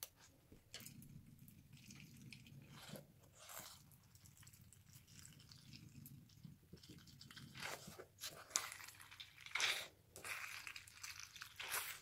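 A rubber stress ball full of water beads being cut with scissors, a sharp snip at the start, then squeezed so the wet gel beads squish and spill into a glass dish, in a run of irregular squelching and crackling that gets louder in the second half.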